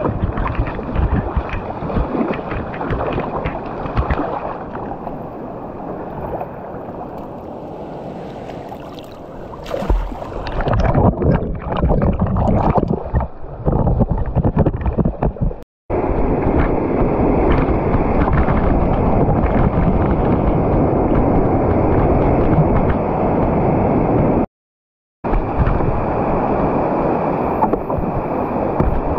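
Whitewater rushing and splashing around a kayak running a rapid, heard from a camera on the boat, with a run of sharp splashes about ten seconds in and a steady loud wash of rapids after that. The sound cuts out to silence for a moment twice.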